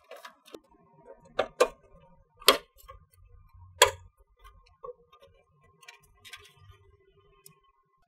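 Sharp plastic clicks and snaps of an eGauge EG3000 energy meter being pressed onto its DIN rail clips: a couple of clicks about a second and a half in, then two louder snaps at about two and a half and four seconds.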